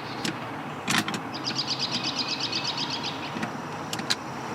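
Scattered clicks and knocks of a Phillips screwdriver working tight screws out of car interior trim, the sharpest about a second in. A rapid, even run of high ticks lasts about a second and a half in the middle.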